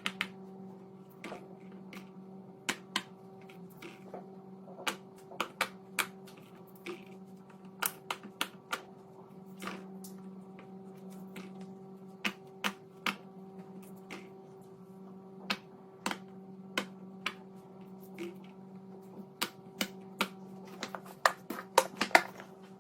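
Fidget toy being clicked by hand: irregular sharp plastic clicks, spaced out at first and coming quickly in a cluster near the end. A steady electrical hum runs underneath.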